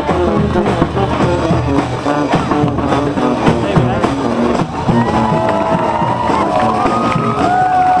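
Street brass band playing live: sousaphone, trumpet, trombone and snare drum over a steady beat. In the last few seconds the horns hold long notes that step up in pitch.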